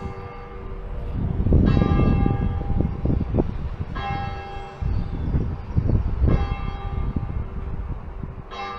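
Church clock bell striking the hour: one bell struck four times at an even pace, about every two and a quarter seconds, each strike ringing on into the next, over a low rumble.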